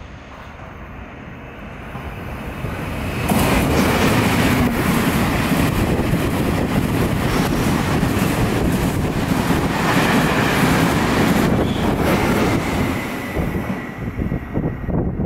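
Passenger train passing through the station at speed on the near track. A rising rush of wheels on rail grows for about three seconds, stays loud for about ten seconds as the carriages go by, then falls away as the train recedes near the end.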